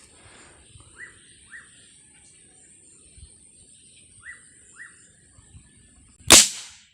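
Small bird chirping: short single notes, each falling in pitch, in two pairs about half a second apart, over a steady high hiss. Near the end, a sudden loud sharp burst.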